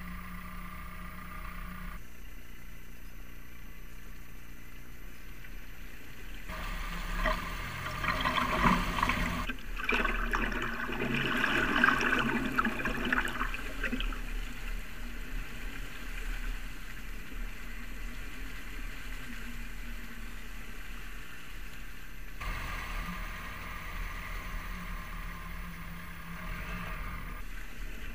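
Jeep Wrangler JK running through a muddy pond, its engine droning steadily while muddy water splashes and sloshes around the tyres. The splashing is loudest from about seven to fourteen seconds in.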